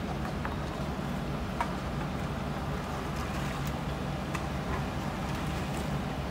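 Diesel engine of heavy earthmoving machinery running steadily, with a few faint clicks.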